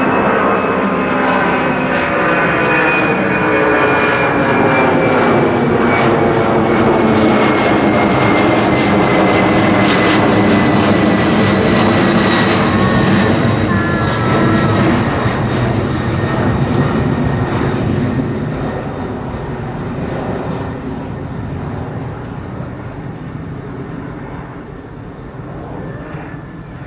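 Twin turbofan engines of a Boeing 767-300 at climb power as the jet climbs out overhead. A steady, loud jet rumble carries a high fan whine that slides slowly down in pitch, and the sound grows fainter over the last ten seconds as the airliner flies away.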